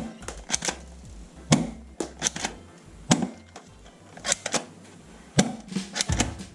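A dozen or so sharp clicks and snaps at uneven intervals, some in quick pairs.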